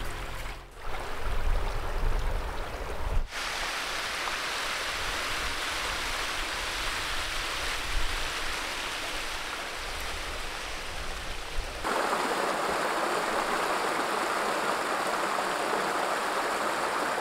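Dam overflow water running in a shallow sheet over stone paving and spilling over a low stone step, a steady rushing. About 12 s in the rush jumps to a louder, brighter level.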